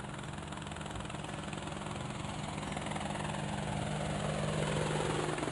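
Helicopter sound effect: rotor chopping over a steady engine hum, growing gradually louder as the helicopter approaches.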